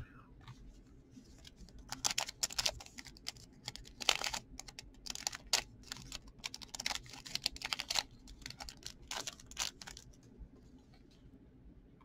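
A stack of trading cards being flipped through by hand, the card edges clicking and snapping against each other in quick, irregular runs, mostly between about two and ten seconds in.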